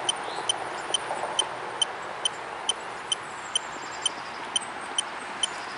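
Steady electronic ticking from a ghost-hunting detector, a short high beep-like tick about twice a second over a steady hiss.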